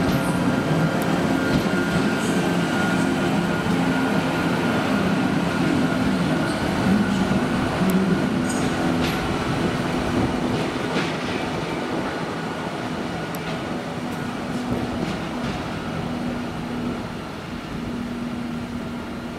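CP Series 2600 electric locomotive running light and moving off, with a steady electric hum that slowly fades as it draws away. A few short clicks come from its wheels on the track partway through.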